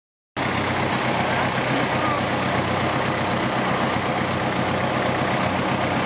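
Engine of an open farm utility vehicle idling steadily: an even, low drone with a constant hiss over it.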